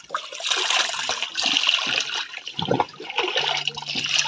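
Water jet rushing and splashing against the muddy axle and chassis of a JCB backhoe loader, a steady hiss of spray on metal, with a dull knock nearly three seconds in.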